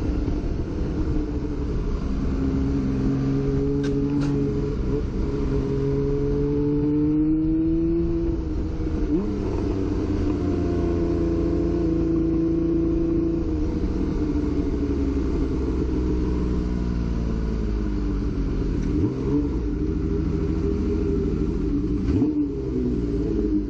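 Honda CBX 1050's inline-six engine running and revving, its pitch rising and falling several times as it speeds up and eases off.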